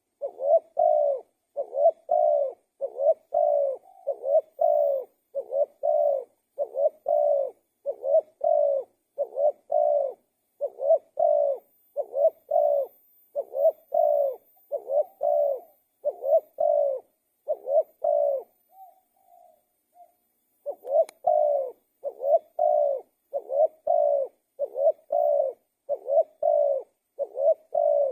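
Spotted dove cooing in a fast, steady run of short coos, about two a second. It breaks off for a couple of seconds about two-thirds of the way through, with only a few faint soft notes, then starts again.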